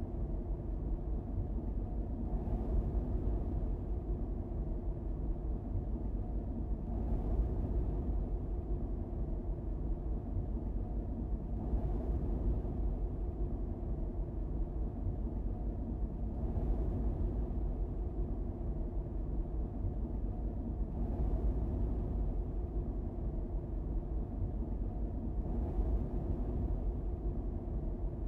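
Steady low road and engine noise of a car driving along a paved road, with a faint hiss that swells about every five seconds.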